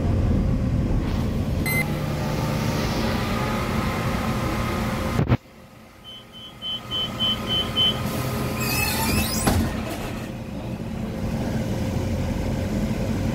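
Cabin noise inside a Volvo B8RLE city bus: diesel engine and road rumble while driving, broken off abruptly about five seconds in. In the quieter stretch that follows, six short high beeps sound in a row, then an air hiss near the middle, and the running noise builds again.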